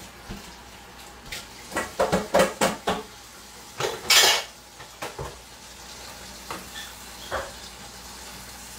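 Dishes and cutlery clattering in a stainless steel kitchen sink as they are handled and washed: a quick run of clinks and knocks about two seconds in, a louder burst about four seconds in, then a few scattered knocks.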